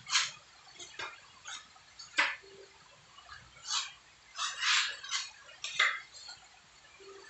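Steel putty knife scraping wall putty onto a concrete wall in about eight short, irregularly spaced strokes, some quick and sharp, some drawn out.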